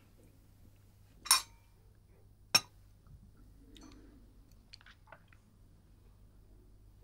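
Crockery clinking at a table: two sharp clinks about a second apart, the first with a brief ring, then a few faint clicks.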